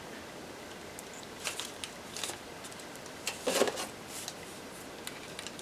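Masking tape being handled on a small plastic prop: faint scattered rustles and clicks, with a louder tear or scrape about three and a half seconds in.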